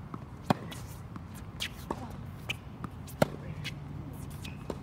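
Tennis rally on a hard court: two sharp racquet strikes on the ball about two and a half seconds apart, the loudest sounds, with fainter ball bounces and scuffing footwork between them.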